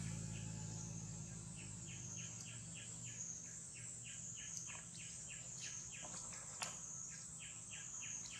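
Faint outdoor ambience: a steady high-pitched insect buzz, with runs of short chirps repeating about four times a second from about two seconds in, and a single sharp click late on.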